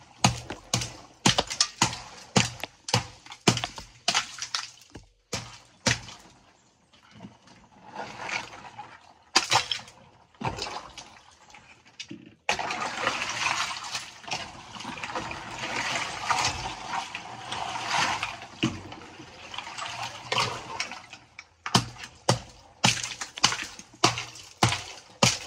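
Hammer blows cracking and chipping block ice in a water-filled chest freezer, about two strikes a second, breaking it into small chunks, with splashing water. Through the middle, for about nine seconds, the strikes give way to continuous sloshing of water and ice.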